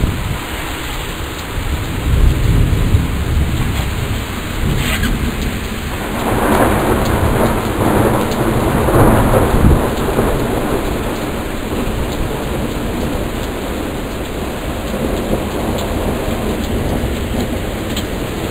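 Heavy rain falling steadily, with thunder rumbling through it and swelling louder for a few seconds near the middle.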